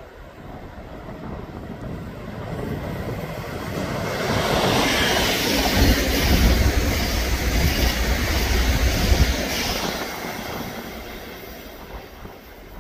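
SBB ETR 610 (RABe 503) electric high-speed train passing at speed: rumble of wheels on the rails and a rush of air that builds for about five seconds, is loudest for about four seconds as it goes by, then fades away.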